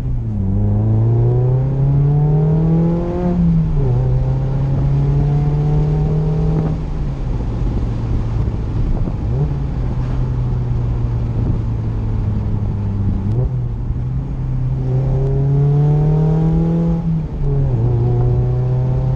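Mazda MX-5 RF's four-cylinder engine breathing through a RoadsterSport SuperStreet twin-tip exhaust, one of the more aggressive muffler choices, heard from the open-roofed cabin while accelerating. The revs climb for about three seconds and drop at an upshift, then the engine holds steady at cruise. About two-thirds through the revs climb again, with another shift near the end.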